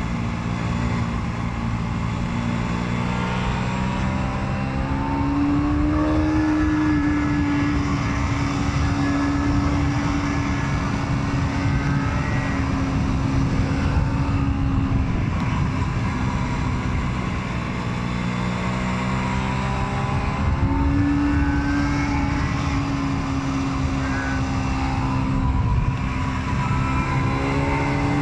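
Aprilia Tuono 125's single-cylinder four-stroke engine pulling on the road, mixed with wind rush. The engine note rises, holds, drops back, then rises and holds again.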